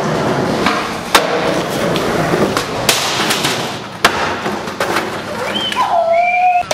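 Skateboard rolling on concrete with sharp clacks of the board hitting and landing, two loudest about a second in and about four seconds in. Near the end a wavering high-pitched tone sounds over it.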